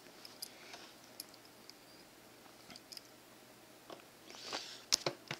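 Faint, scattered clicks and scrapes of a screwdriver working at a plastic laptop case, with a brief soft hiss and a few sharper clicks near the end.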